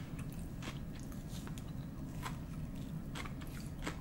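A person chewing a mouthful of food with the mouth closed, making faint clicks at an uneven pace, roughly one a second.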